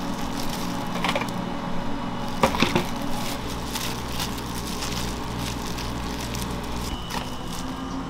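Shop kitchen work noise: a steady low hum with a few sharp knocks and clatters, the loudest a quick cluster about two and a half seconds in.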